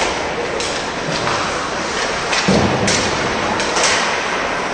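Ice hockey play: a steady scraping hiss of skates on ice, with several sharp knocks of sticks and puck and one heavy thud about two and a half seconds in.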